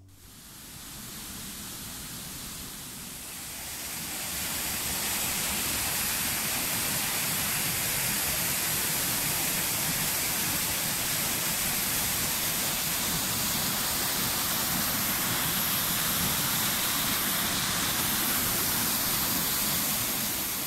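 Steady rushing of a tall waterfall pouring down a narrow rock gorge, fading up over the first four seconds or so and then holding level.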